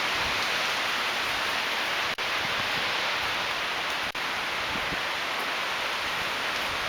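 Gale-force wind rushing through tall Douglas fir and other trees, a steady even hiss. The sound cuts out for an instant twice, about two and four seconds in.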